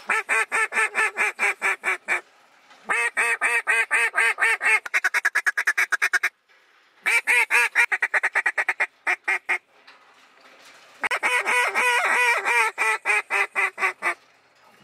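Hand-blown goose call worked in rapid runs of clucks, four strings of quick notes with short pauses between them. The second string speeds into a fast chatter near its end.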